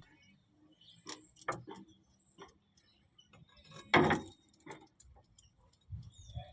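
Scattered light clicks and taps of hand work with tools and a container of lubricant, with one louder knock about four seconds in.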